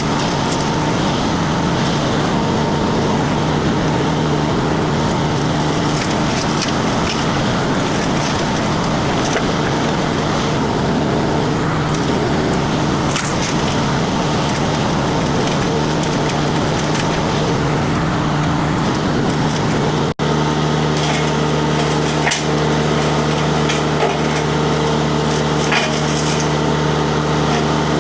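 Mini skid steer disc mulcher running under a diesel engine and chewing through wood and brush, a dense splintering racket over the steady engine note. After a sudden break about 20 seconds in, the engine and disc hum steadily with only a few scattered ticks.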